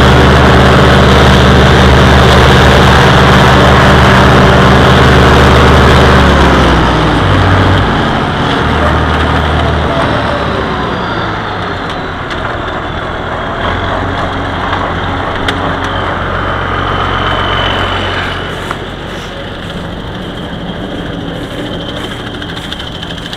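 Oliver 1955 tractor engine running steadily at working speed with the stalk chopper, then throttled back about seven seconds in, its pitch falling, and running slower and quieter, near idle, for the rest.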